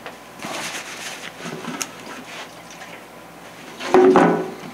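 Paper towel sheets rustling and crinkling as they are handled. About four seconds in, a short loud glug of denatured alcohol from a metal can tipped against a paper towel.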